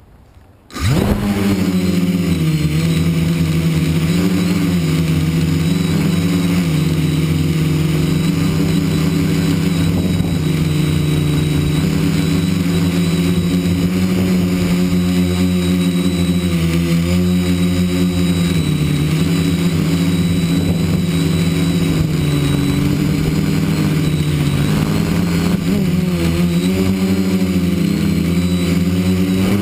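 A multirotor drone's electric motors and propellers spin up abruptly about a second in, then run with a steady buzzing hum whose pitch rises and dips slightly as the drone lifts off and hovers.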